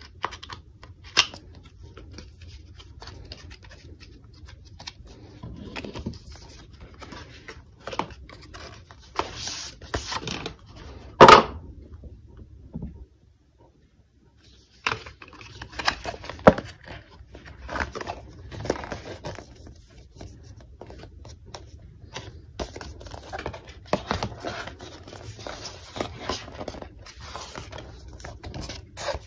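Paper and cardboard packaging of an Apple Watch SE box being handled: irregular rustling, scraping and light taps as the trays and band box are moved, with one sharp, loud knock about eleven seconds in and a brief near-silent break just after.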